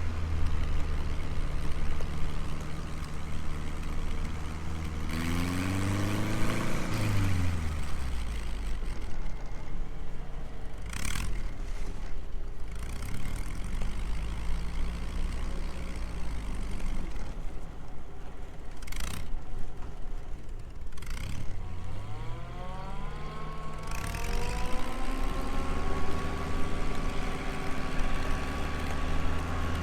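Engine of a tracked over-snow vehicle running under load, its pitch climbing and dropping as it revs about six seconds in and climbing again past the twenty-second mark. Several short clunks come in the middle.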